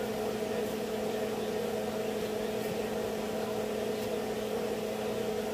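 A steady appliance hum of several even tones, with a few faint snips of scissors cutting through a thick hank of hair.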